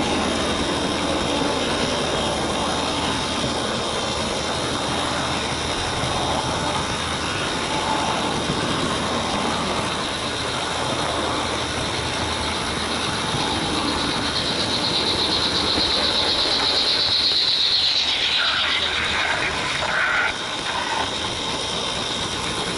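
Märklin model train running on its track, heard from a wagon it is pulling: a steady rattle and clatter of the small wheels and mechanism, with a high whine that grows and rises about two-thirds of the way through, then breaks up, with a short drop in level near the end.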